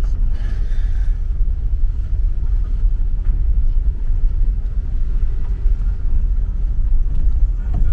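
Steady low rumble of a car on the move, road and engine noise with no clear events.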